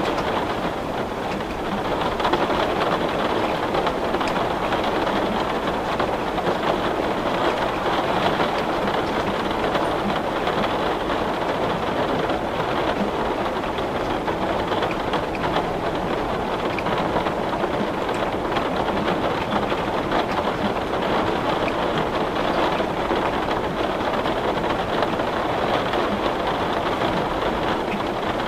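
Heavy rain beating on window glass: a steady, dense patter of drops that neither builds nor fades.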